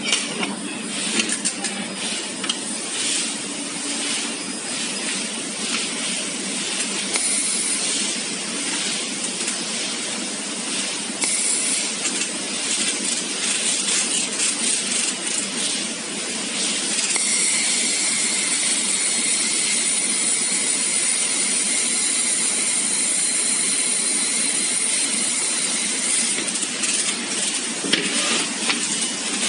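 Handheld fiber laser welder working: a steady hiss from the welding nozzle's shielding gas and the weld, most even and brightest from a little past halfway until near the end. Constant machine noise runs underneath, with scattered clicks in the first half.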